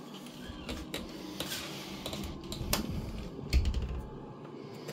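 Light, irregular clicks and knocks with rustling handling noise as a phone is carried about a kitchen, and a low thump about three and a half seconds in.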